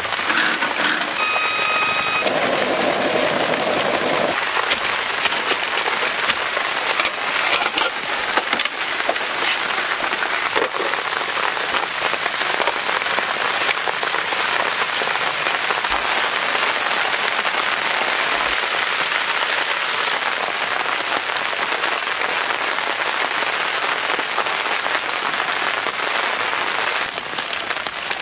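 Steady rain falling on tent fabric, heard from inside the tent. Near the start there is a brief high ringing tone.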